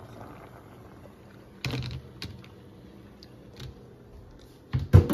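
Scattered knocks and clicks of a plastic colander against a steel pot as drained pasta is tipped into cheese sauce: one knock under two seconds in, a few small clicks, and a cluster of louder knocks near the end.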